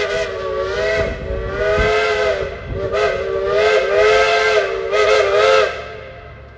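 Loud steam whistle on a Case steam traction engine, sounding a chord of several notes in a few long blasts that waver in pitch, and stopping about five and a half seconds in.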